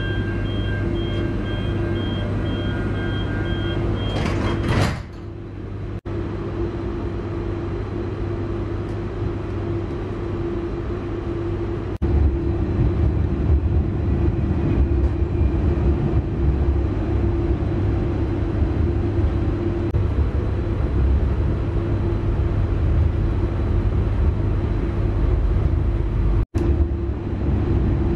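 Auckland AM class electric commuter train: door warning beeps sound while the doors stand open, and the sliding doors shut about four to five seconds in. Then the train runs on with a steady hum and a rumble of wheels on track, which grows louder from about twelve seconds in.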